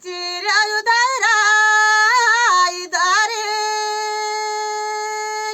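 A single high voice singing unaccompanied. It sings a short phrase of ornamented, wavering runs, breaks off briefly near three seconds, then holds one long steady note that stops abruptly.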